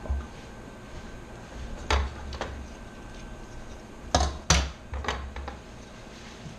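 A few sharp clicks and knocks of hard parts being handled while a liquid cooler is fitted into a computer case, the loudest a close pair a little past halfway.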